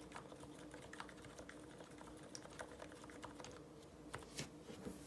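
Typing on an IDOBAO ID80 V2 mechanical keyboard with lubed Cherry MX Silent Red switches and GMK keycaps: soft, muted keystrokes in an irregular stream, with a couple of louder strokes about four seconds in.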